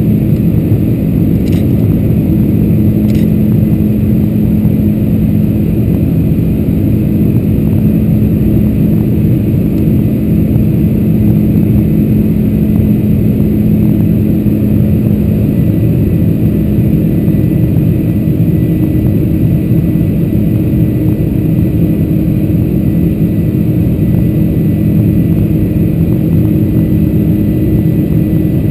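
Boeing 747-400's General Electric CF6-80C2 turbofan engines running steadily at climb power after takeoff, heard inside the cabin over the wing as a loud, low, unbroken drone with a steady hum. Two faint clicks sound a couple of seconds in.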